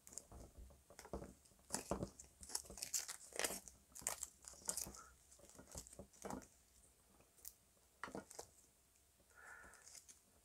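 Old yellow tape being peeled and unwound from a power cable just behind its DIN plug: a faint, irregular string of sticky crackles and crinkles.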